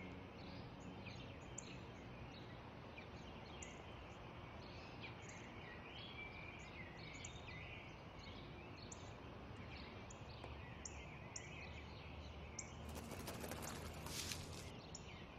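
Small birds chirping, many short high calls scattered throughout, over a faint steady outdoor background. About a second before the end a brief rustling noise lasts about a second and a half.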